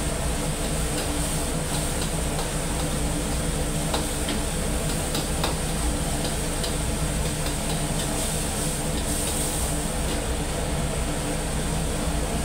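Egg and tomato sizzling in a steel wok while a metal ladle and spatula stir and clink against the pan in short irregular taps, over the steady low rumble of the gas wok burner.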